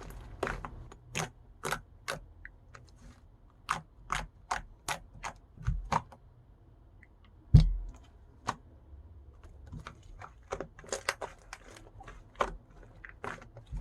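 Irregular small clicks and taps from close-up handling of objects, with two heavier low thumps about six and eight seconds in, the second the loudest.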